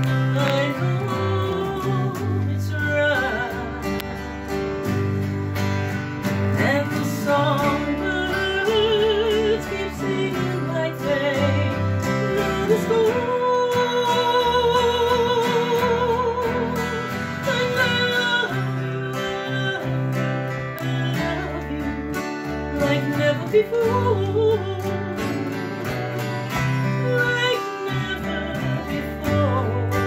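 A woman singing over three acoustic guitars strumming and picking together. About halfway through she holds one long note with vibrato.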